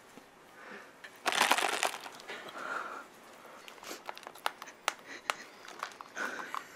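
Cardboard chocolate frog box being handled and picked at: a loud papery rustle about a second in, then a string of small clicks and crackles as the card flaps are pried at.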